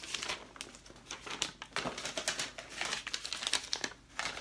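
Paper packaging insert crinkling and rustling as it is handled, an irregular run of small crackles that drops away briefly near the end.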